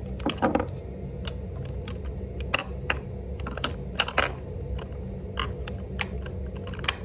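Irregular clicks and light knocks of small plastic makeup containers being picked up, moved and set down, over a steady low hum.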